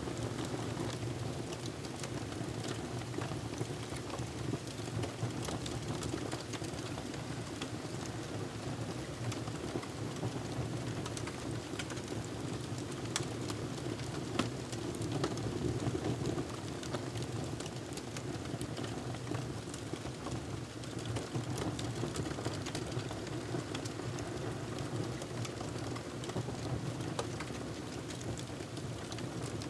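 Wood fire crackling: a steady low rush of burning with scattered sharp pops and snaps.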